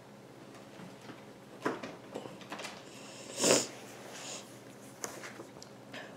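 Soft, scattered rustles and taps of handling, with a louder sniff about three and a half seconds in.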